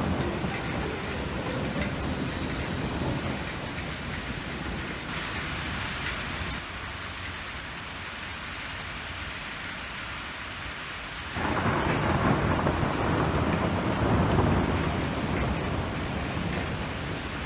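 Hail and rain pelting down in a dense, steady hiss. About eleven seconds in it suddenly grows louder and deeper.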